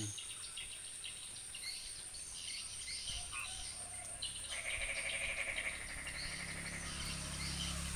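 Frogs calling in the rain: scattered short calls at first, then from about halfway a fast, rattling pulsed croaking that keeps repeating, over a steady hiss of rain.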